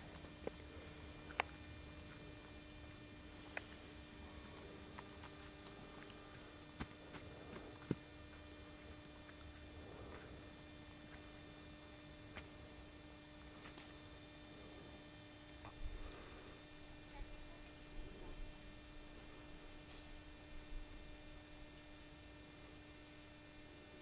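Near silence: a faint steady electrical hum, with a few small clicks and a little low rumble now and then.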